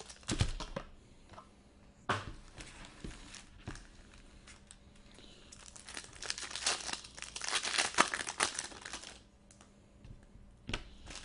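Plastic-foil wrapper of a 2018 Bowman Chrome hobby pack crinkling as the packs are handled and one is torn open by hand, the crinkling heaviest and most continuous for a few seconds past the middle.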